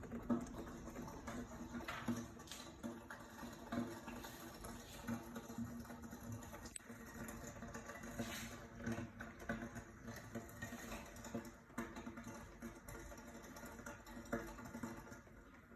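Samsung air conditioner indoor unit, switched off during rain, making faint irregular popping and crackling like popcorn. The owner likens it to water getting in, though no rain is known to leak into the unit.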